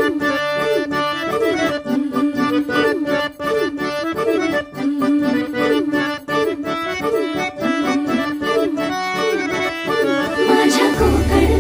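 Harmonium playing a folk melody over a regular drum beat. Near the end a rising sweep leads into a deep bass.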